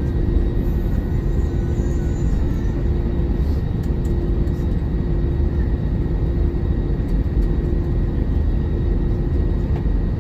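Steady engine and rolling rumble heard inside the cabin of an Airbus A321-200 taxiing, with a constant low hum and no build-up of power.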